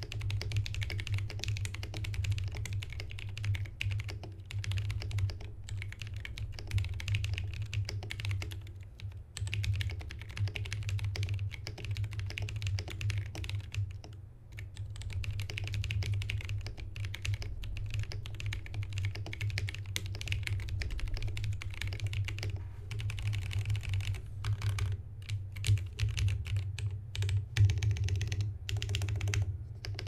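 Typing on an aluminum-case Alice-layout mechanical keyboard with lubed Jwick Black linear switches and PBT keycaps. The keystrokes come fast and continuous, then thin into separate presses with short pauses over the last several seconds. A steady low hum runs underneath.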